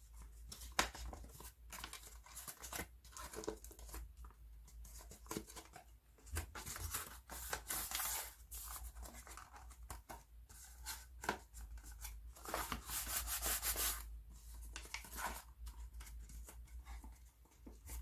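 Paper rustling and rubbing in irregular bursts as white paper is folded and pressed by hand around a small cardboard box.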